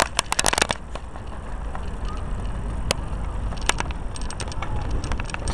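Riding noise on a KMX Cobra recumbent pedal trike: wind rumbling on the microphone, with a rapid clatter of rattling clicks in the first second that thins to occasional single clicks.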